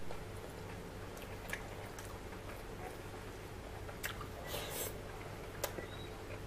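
Close-up eating by hand: soft wet clicks and squishes of fingers in rice and curry and of a mouthful being taken and chewed, with a brief wet rustle about four and a half seconds in, over a low steady hum.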